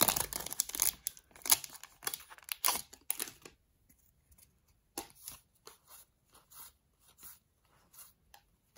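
Crinkling of a foil Pokémon booster pack wrapper as the cards are pulled out. After a short pause comes a run of soft, short card slides, about two a second, as the trading cards are flipped from the back of the stack to the front one at a time.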